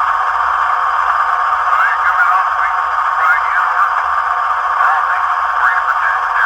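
ESU LokSound 5 sound decoder playing an EMD 16-710 diesel prime mover running steadily, through the small speaker of an Athearn Genesis HO-scale Union Pacific SD60M model. The sound is thin and tinny, with almost no bass.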